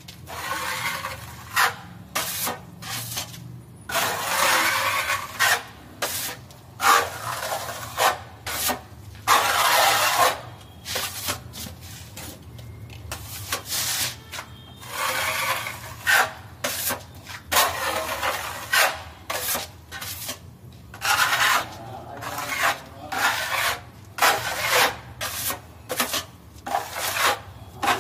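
Steel putty blade scraping over a plastered wall in repeated strokes as a coat of wall putty is spread on. The rasping strokes come irregularly, a few about a second long and many short.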